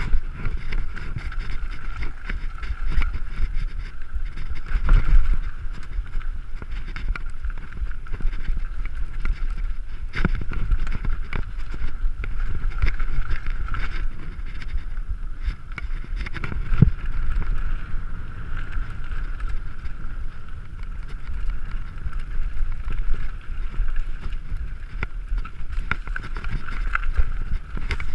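Mountain bike riding a dirt trail: tyre and frame rattle over rough ground with wind buffeting the microphone, and sharper knocks now and then, a few seconds apart, as the bike hits bumps.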